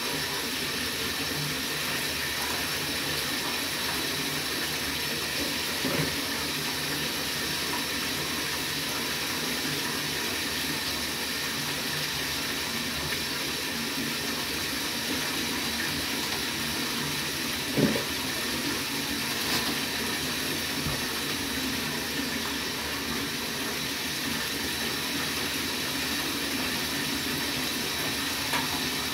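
Steady rush of running water, like a tap running into a bath, with a few short knocks over it, the loudest about eighteen seconds in.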